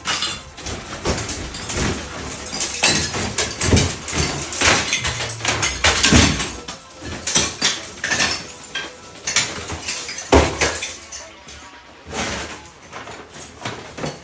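Bathroom demolition: ceramic tile and debris being smashed and broken loose, an irregular run of crashes, cracks and clattering shards, with the loudest crash about ten seconds in.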